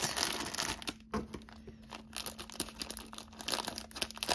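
Thin clear plastic packaging bags crinkling and rustling as they are handled, in irregular crackles that are busiest in the first second.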